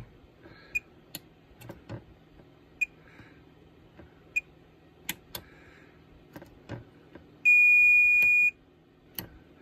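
Fluke 179 multimeter in diode-check mode. The probe tip clicks on IC pins, a few brief chirps sound, and near the end a steady beep lasts about a second as the probe lands on a pin that reads almost a dead short (0.026 V) on the damaged switch matrix.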